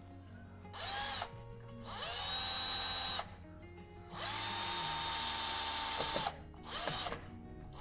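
Power drill driving a screw into a wooden wall plug in four bursts, the motor whine rising as it spins up and dropping as it stops each time; the screw is left partly out so the shelf can be hung on it.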